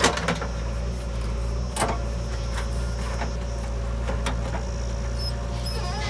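Diesel engine of a JCB 3DX backhoe loader running steadily while it works, with a few sharp clanks and knocks spread through.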